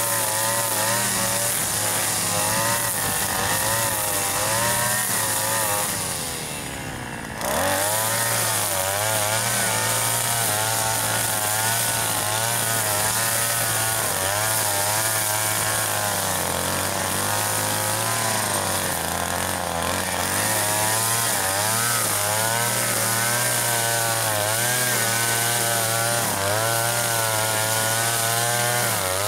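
Two-stroke petrol chainsaw running at high revs, its engine speed wavering as it cuts. About six seconds in it drops briefly toward idle, then revs up again sharply a second and a half later.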